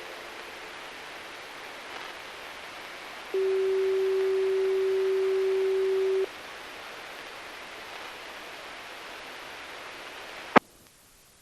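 Radio receiver on the 68.865 MHz municipal disaster-prevention radio channel, hissing after the music-box chime has ended. A little over three seconds in comes one steady tone lasting about three seconds; about ten and a half seconds in a sharp click cuts the hiss off as the transmission ends.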